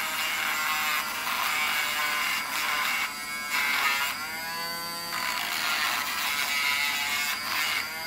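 Dremel rotary tool with a sanding drum running at speed, a steady high whine as it grinds down a protruding edge on a soldered Deans connector. The pitch sags and recovers a few times as the work is pressed against the drum.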